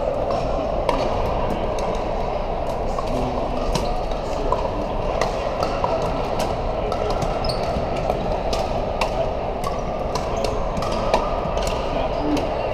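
Pickleball paddles striking plastic balls: sharp, irregular pocks from several courts at once, over a steady background din of the hall.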